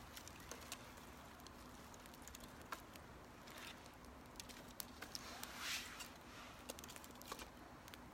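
A small fire of dry cedar leaves crackling faintly, with scattered sharp pops and one short louder rush of noise about two-thirds of the way through.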